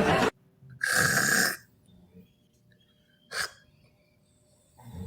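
A sleeping person snoring: one long rasping snore about a second in, then a shorter, fainter one past the middle.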